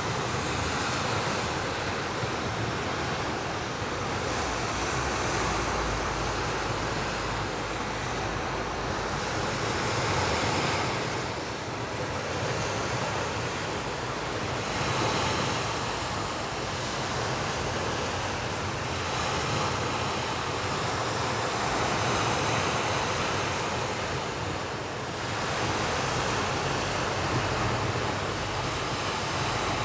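Sea waves washing onto a beach: a steady rush that swells and eases every few seconds.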